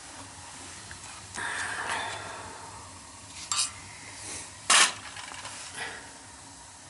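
Hands working with metal parts or tools at a boiler: a scraping, rustling stretch, then three sharp metallic clicks, the loudest near the middle.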